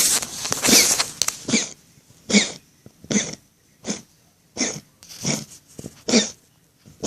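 Domestic cat coughing in short, sneeze-like hacks: a quick run of them at first, then single coughs about every three-quarters of a second. It is the kind of cough that comes with an enlarged heart, as a vet diagnosed in this cat.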